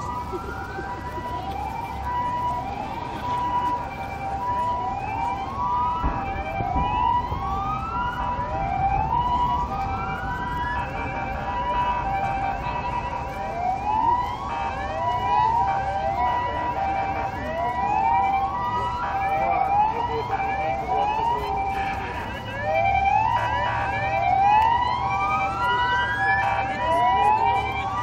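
Siren-like whoops, each rising sharply in pitch. Several overlap and repeat about every one to two seconds over steady pulsing beeps and a low crowd rumble.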